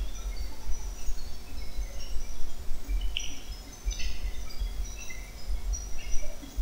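Small birds chirping now and then in the background, over a low, uneven rumble.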